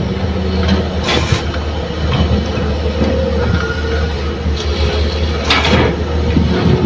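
Heavy diesel machinery running steadily with a low drone, as an excavator loads a dump truck. Two short rushes of noise break through, about a second in and again about five and a half seconds in.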